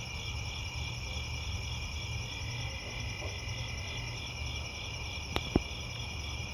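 Crickets and other insects chirping steadily in a chorus of several layered, pulsing high tones over a low rumble. Two short sharp clicks come about five seconds in.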